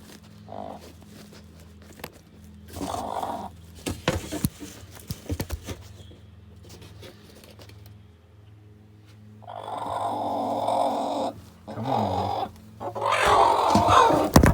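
Broody hen growling and squawking in protest as she is lifted off her eggs. A long call comes about ten seconds in and more calls follow near the end, after a few knocks and rustles of handling.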